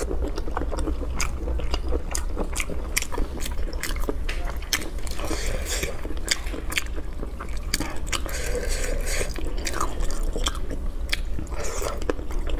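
Close-miked eating: chewing and biting with many short wet clicks and crunches as braised food is pulled apart by hand and eaten. A steady low hum lies underneath.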